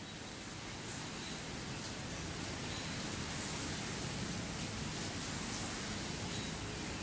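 Deck cleaner being sprayed or scrubbed into a wooden deck: a steady hissing, pattering noise with fine crackle.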